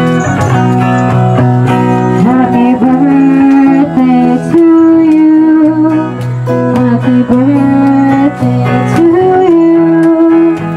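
A song performed with a woman singing into a microphone over guitar accompaniment, with long held notes that slide into pitch over steady bass notes.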